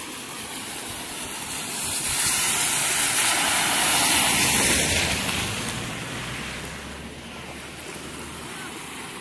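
A car drives past through standing water on the road, its tyres hissing and spraying; the sound swells about two seconds in, peaks around four to five seconds and fades by about seven. Under it runs a steady rush of muddy floodwater.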